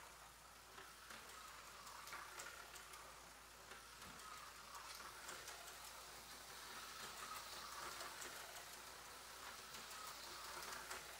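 Aurora HO-scale slot car running laps on a small oval track: a faint whirring from its tiny electric motor and wheels on the track, wavering in pitch as the car circles, with scattered light clicks.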